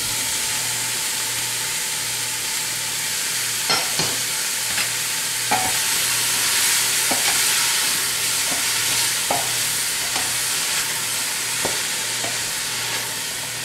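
Chopped onions, celery and green bell peppers sizzling in hot oil in a stainless steel stockpot while they are stirred with a wooden spoon, which knocks on the pot now and then. This is the vegetable base (the Cajun 'holy trinity') being sautéed down toward translucent onions.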